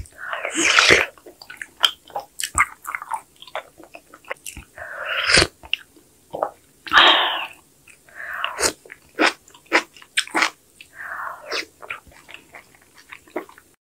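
Close-up eating sounds of a person eating soupy kimchi sujebi from a wooden spoon: about five wet slurps of broth and dough pieces, with chewing and short sharp clicks between them.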